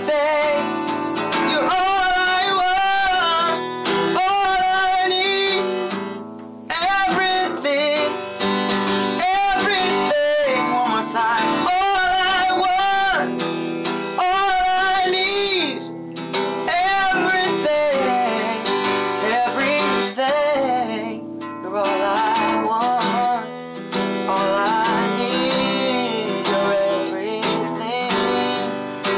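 Acoustic guitar strummed steadily, with a voice singing long, wavering runs over it that the recogniser caught no words in.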